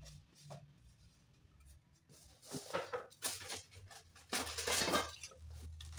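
Cardboard box rustling and scraping as it is handled and opened. There are a few short bursts between about two and a half and three and a half seconds in, and a longer one about four and a half seconds in.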